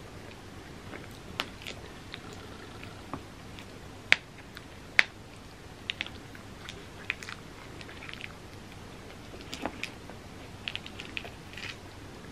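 Close-miked eating: chewing and mouth sounds with scattered small clicks, and a metal spoon digging into ice cream and clinking against a glass bowl, the two loudest clinks about four and five seconds in.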